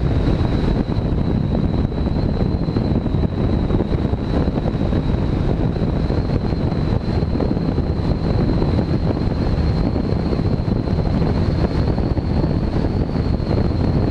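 Bass boat running at wide-open throttle behind a Mercury 250 Pro XS four-stroke V8 outboard turning about 5880 rpm at over 70 mph, heavy wind buffeting the microphone over the engine and hull noise. A steady high whine runs through it, creeping slightly up in pitch.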